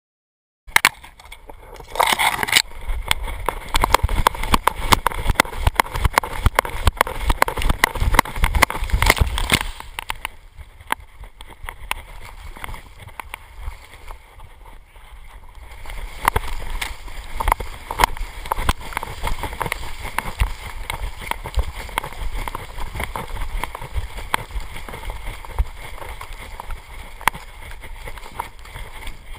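Labrador retriever swimming a river, heard from a camera strapped to its back: water splashing and sloshing around the dog. Before that, a loud sudden burst about two seconds in, then heavy rumbling and knocking up to about ten seconds.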